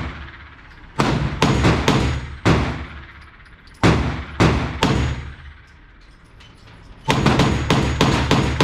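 Gunshots at an indoor shooting range, each followed by an echoing tail. Single shots and pairs come at uneven intervals for the first five seconds, and a quick string of about eight shots starts about seven seconds in.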